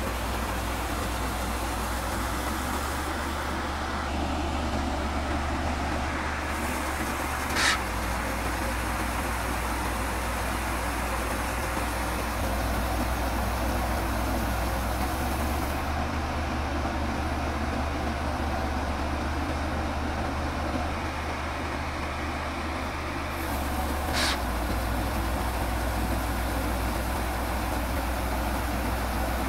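Rice combine harvester's engine running steadily, with a continuous low hum. Two short high-pitched squeaks cut through it, about eight seconds in and again about twenty-four seconds in.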